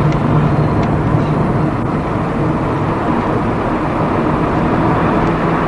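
Steady engine and road noise of a car driving along, heard from inside the cabin, with a low even hum under the rushing noise.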